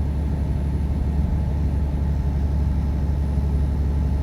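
Semi truck under way, heard from inside the cab: a steady low drone of engine and road noise.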